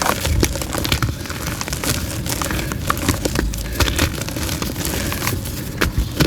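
Blocks of soft white gym chalk crushed and crumbled into powder close to the microphone: a steady run of soft crunches and fine crackles.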